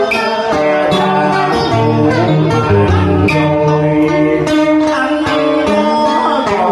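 Cải lương accompaniment on plucked string instruments: a melodic interlude of quick plucked notes over held tones.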